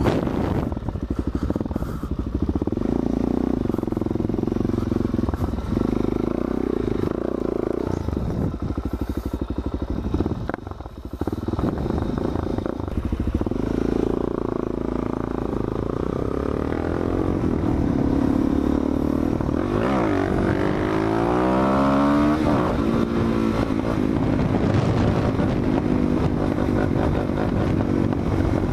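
Suzuki DR-Z400SM supermoto's single-cylinder engine running under way, its revs rising and falling with the throttle. It drops off briefly about ten seconds in, then revs up through several gears about two-thirds of the way through.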